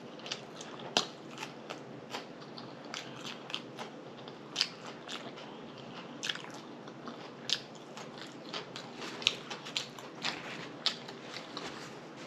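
A person chewing food close to the microphone, with irregular wet mouth clicks and lip smacks several times a second.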